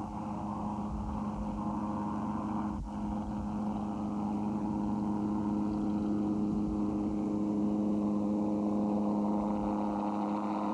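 Gyroplane engine and pusher propeller droning at a steady pitch, with a brief dropout about three seconds in.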